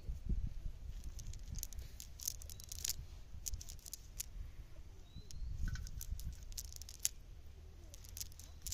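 A cast net being handled and pulled apart over dry ground and leaves: rustling and crackling with scattered sharp clicks and ticks, busiest about two to three and a half seconds in and again around six to seven seconds.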